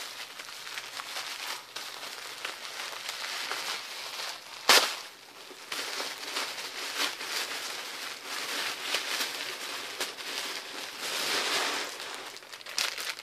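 Paper wrapping crinkling and rustling as a small item is unwrapped by hand, with one loud sharp snap about five seconds in and a smaller click near ten seconds.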